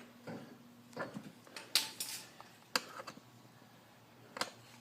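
About half a dozen light metallic clinks and taps, scattered and irregular, as metal tools and parts knock together while a motorcycle carburetor is worked into its intake boots.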